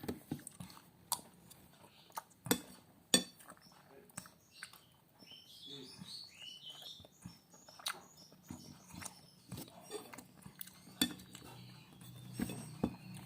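Spoon and fork clinking against a plate, with eating and chewing, as a helping of capcay with rice is taken. A few sharp clinks stand out, the loudest about three seconds in, and a short, high, wavering call comes midway.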